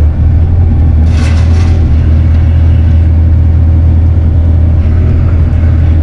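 Bobcat mini excavator's diesel engine running steadily with a deep drone, heard from inside the open cab, with a brief hiss about a second in.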